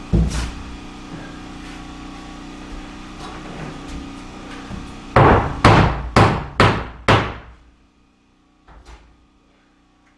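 Pneumatic nail gun firing nails into framing lumber: five sharp shots about half a second apart, starting about halfway through. A steady machine hum runs beneath them and stops just after the last shot. A single lighter knock follows near the end.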